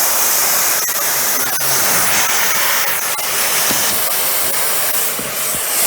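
Dyson Ball Animal 2 upright vacuum's 10-amp suction motor running, drawing air through the hose and extension wand with a loud, steady rushing hiss. A few sharp plastic clicks and knocks come through it, twice in the first second and a half and again about three seconds in.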